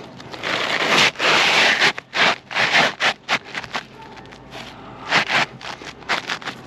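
A replacement architectural asphalt shingle scraping against the surrounding shingles as it is slid and worked into place: a long scrape about a second in, then a run of shorter scrapes.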